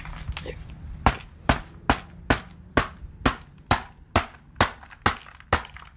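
A rock repeatedly striking an iPhone 4, about eleven sharp blows at a steady pace of roughly two a second, beginning about a second in, breaking up the phone.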